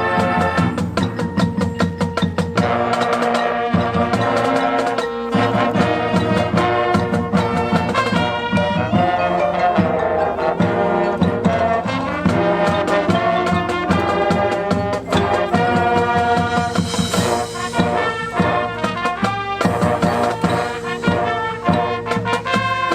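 High school marching band playing its field show: massed brass holding and moving through chords over a drum line keeping a steady beat.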